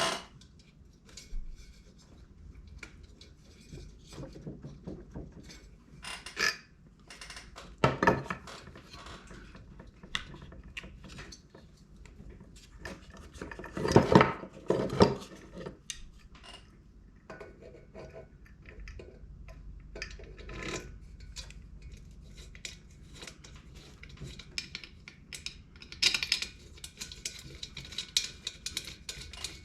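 Hand tools and metal heater parts clinking and knocking during reassembly: irregular small clicks and rattles, with louder knocks about 8 seconds in, a cluster around 14 to 15 seconds, and another near the end.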